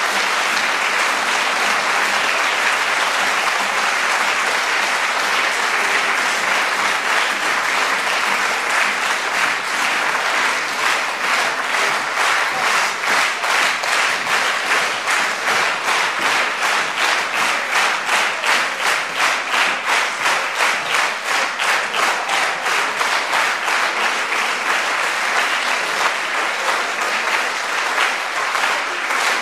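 Theatre audience applauding; about ten seconds in the clapping falls into a steady rhythmic unison beat, about three claps a second.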